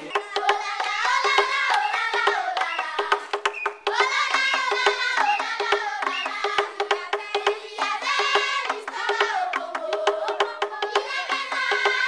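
A group of children singing a song together, accompanied by a wooden slit drum beaten with two sticks in a steady rhythm of knocks.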